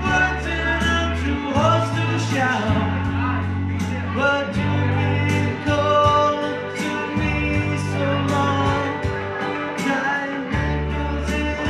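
Karaoke: a singer's voice over a backing track with a steady beat and bass.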